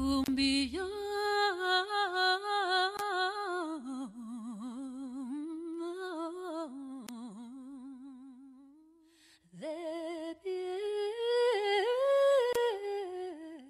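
A lone woman's voice singing long held notes with wide vibrato, with little or no accompaniment: the closing vocal of the dance song. It fades almost to nothing about nine seconds in, then comes back for a last run of rising held notes.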